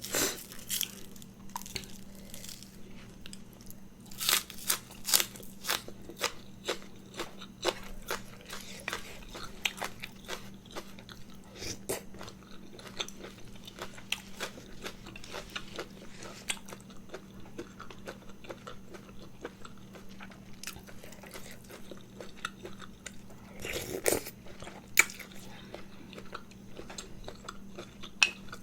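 A person eating: biting and crunching crisp food and chewing. The crunches come thick and fast through the first half, then thin out into sparser chewing, with a louder crunch about 24 seconds in.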